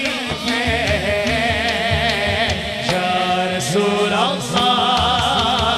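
A naat sung by male voices over a sound system: a lead voice in long, wavering melismatic lines over a low repeated chant.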